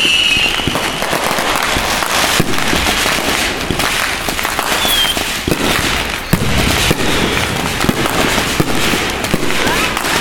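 Fireworks going off in a continuous barrage of rapid bangs and crackles. A falling whistle sounds right at the start and a brief whistle about five seconds in.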